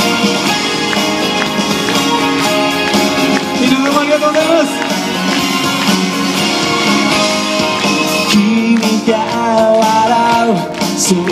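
Live pop song: strummed acoustic guitar with hand claps keeping the beat. A male singer comes in about four seconds in and again near the end.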